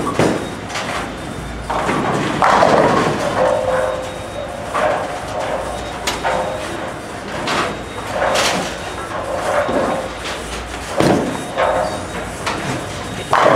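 Bowling alley din: scattered thuds and clatters of balls and pins, with voices now and then.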